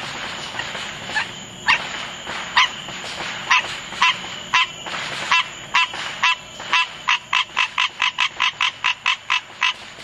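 Green tree frog calling: a series of short, honking notes, widely spaced at first, then quickening to about three a second over the last few seconds.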